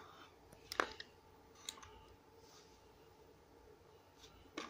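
A few faint, sharp clicks of plastic fishing lures and tackle being handled: one a little under a second in, a smaller one soon after, and more near the end.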